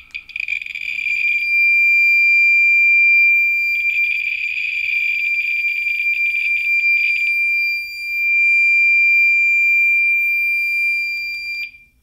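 Handheld radiation detector held a few inches from a radium-226 source, sounding a steady high-pitched alarm tone with a dense rush of clicks over it in two stretches: the detector is saturated into overload by the intense radiation. The tone cuts off suddenly near the end.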